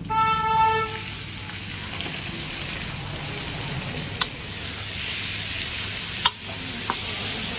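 Sliced onions frying in hot oil in a large iron kadhai with a steady sizzle, stirred with a steel ladle that clinks sharply against the pan three times. A short ringing tone sounds in the first second.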